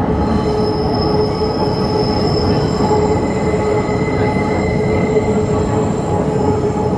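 Metro train running through a tunnel, heard from inside the car: a steady loud rumble of wheels on rail with several high, steady whining tones held over it.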